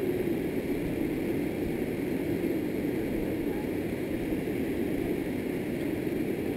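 River water rushing steadily as whitewater down a smooth sloping bedrock slide.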